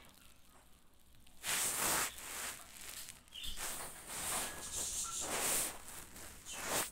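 Several irregular bursts of rustling, scratching noise from a baby palm squirrel scrambling over a terry-cloth towel.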